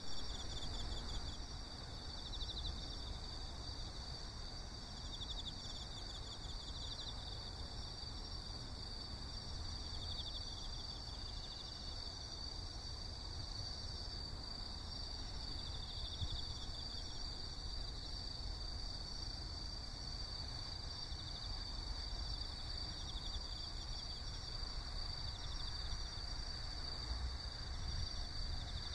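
Insects calling steadily: a continuous high-pitched drone with short pulsing trills breaking in every few seconds, over a low outdoor rumble.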